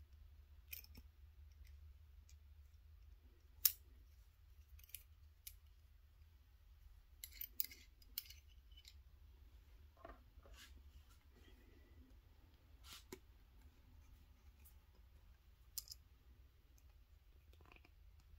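Scattered light clicks and taps of small metal hose fittings and parts being handled and pushed onto model hydraulic cylinders, over a faint low hum. The sharpest click comes a little under four seconds in, with a quick run of clicks about halfway through.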